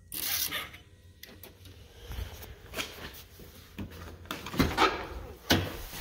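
Handling noise: rubbing and scraping with a few sharp knocks, the loudest near the end, as the person moves about with the phone and reaches for the ignition key.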